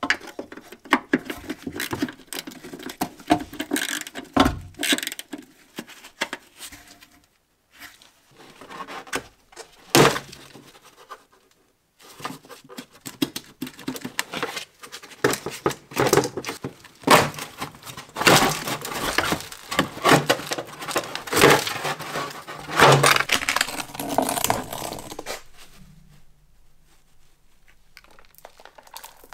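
Metal hand tool clicking and rattling on the fasteners of a plastic underbody cover, then the stiff plastic cover scraping, knocking and crackling as it is worked loose and pulled free, in a run of irregular clicks and scrapes with a few short breaks.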